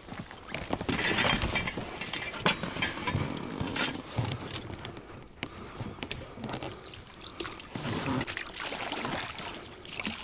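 Oars dipping and splashing in water as a small boat is rowed, in irregular strokes with a few sharp knocks.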